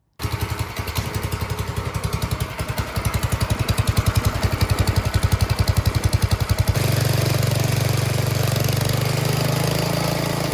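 Mini bike's small engine running through its newly rerouted exhaust, which now points straight down. It pulses evenly, then about two-thirds through the sound abruptly turns smoother and steadier.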